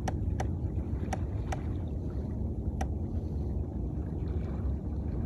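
Hobie Pro Angler fishing kayak on the water: a steady low rumble with a handful of sharp, light clicks in the first three seconds.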